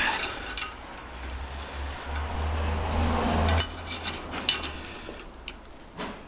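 Metal tools clinking and clicking on an alternator's pulley nut as it is torqued down. A low hum builds over about two seconds and stops abruptly with a sharp clink about halfway through, followed by a few scattered clicks.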